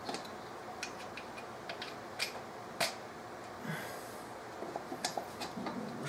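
Scattered light plastic clicks and snaps as spark plug wire boots are handled and pushed onto a new distributor cap, with a brief soft rustle near the middle.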